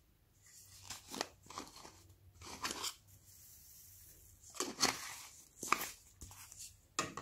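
Plastic crackling and crunching as a small plastic tub of polystyrene foam beads is opened and handled, in several short bursts, with a soft hiss of foam beads being poured out between them.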